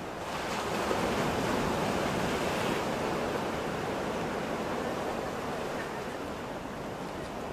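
Sea surf at the shore: a steady rush of breaking waves that swells about a second in and slowly eases after a few seconds.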